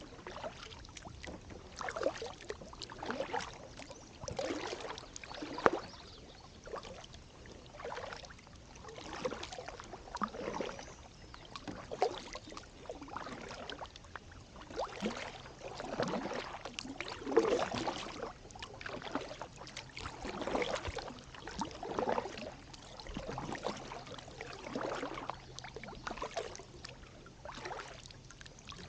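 Kayak paddle strokes: a double-bladed paddle dipping into and pulling through calm river water alongside a Pelican Sentinel 100X kayak, one swishing splash about every second to second and a half, alternating sides.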